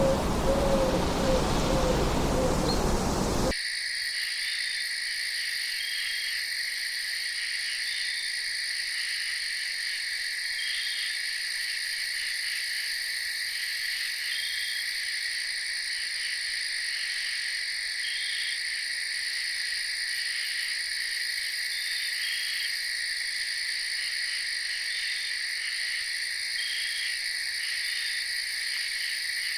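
Steady hiss of rain that cuts off abruptly about three and a half seconds in. It gives way to a night chorus of frogs and insects: a continuous high trilling with short chirping calls repeating about once a second.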